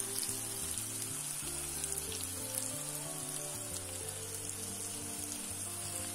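Chilli chicken leg pieces sizzling in a hot kadai just taken off the heat, a steady hiss with fine crackles, over background music with a slowly stepping bass line.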